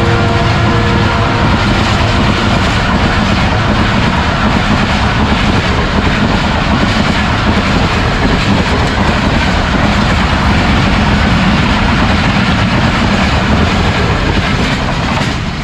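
Passenger coaches of an express train rushing past at about 108 km/h: a loud, steady rush of wheels on rail and wind. The locomotive's horn, falling in pitch as it draws away, fades out in the first couple of seconds.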